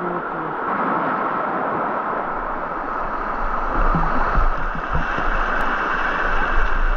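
Shallow, fast river water rushing and gurgling over a bed of rounded stones, a steady rush, with a few low thumps about four seconds in and again near the end.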